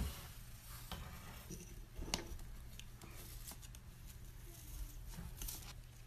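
A sharp click right at the start, then faint scattered ticks and rustles over a low steady hum.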